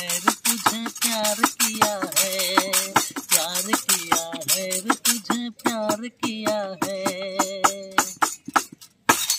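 Harmonium holding steady chords under a singing voice with wavering, ornamented pitch, while a jingle tambourine is struck in a fast, even rhythm. The harmonium stops about 8 s in, followed by a last tambourine hit.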